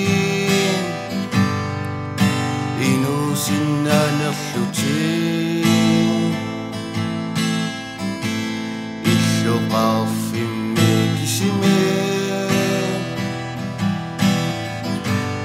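Acoustic guitar strummed steadily in chords, accompanying a young man's singing voice that comes in at times.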